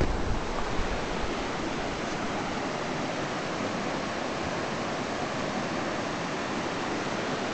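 Steady rush of a fast, shallow mountain creek running over rocks and rapids. Wind buffets the microphone briefly at the start.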